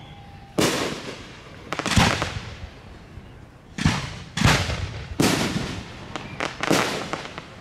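Aerial firework shells bursting in the sky: a string of about nine loud booms, each tailing off, a few seconds apart at first and coming in quick succession from about four seconds in.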